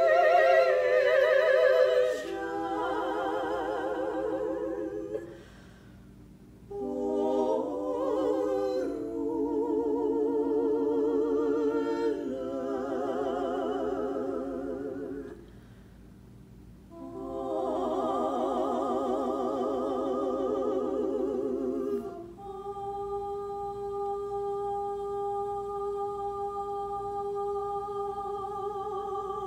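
Three women's voices singing a cappella in close harmony, in phrases with two short breaths between them. About three-quarters of the way through they settle into one long, steady held chord.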